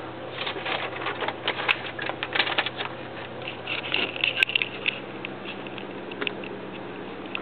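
Handling noise from a handheld camcorder being swung and carried: a rapid, uneven run of small clicks and crackles for about five seconds, then a few scattered ticks, over a faint steady low hum.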